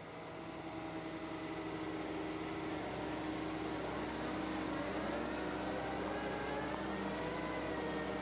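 Volvo wheeled excavator driving slowly, its engine and drive running steadily and growing louder over the first few seconds, with a whine that rises in pitch from about halfway through as the machine picks up speed.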